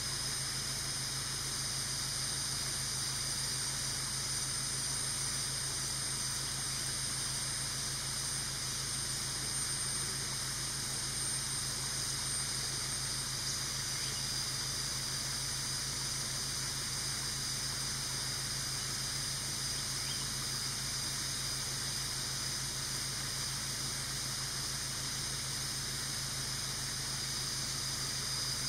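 Steady, unchanging outdoor ambience: an even high-pitched hiss and drone, with a low hum underneath.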